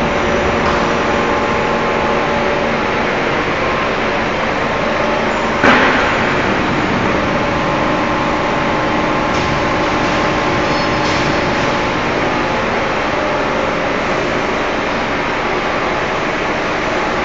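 Wire-cut EDM machine running, a steady mechanical noise with several held tones, with one sharp clack about six seconds in.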